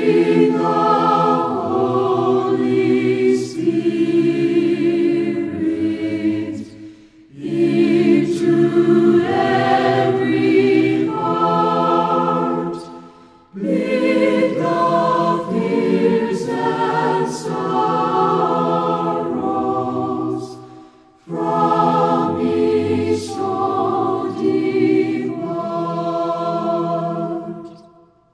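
Choir singing a hymn in four phrases, with a short break for breath between each; the last phrase dies away near the end.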